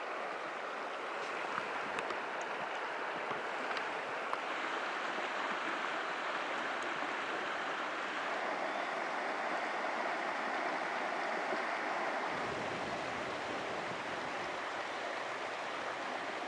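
Shallow river water running over cobbles: a steady rush, with a few faint ticks in the first few seconds.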